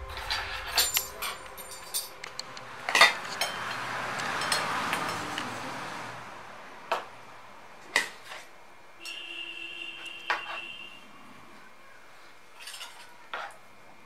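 Stainless steel measuring spoon clinking and scraping against stainless steel plates while scooping milk powder: a run of sharp, irregular clinks, the loudest about three seconds in.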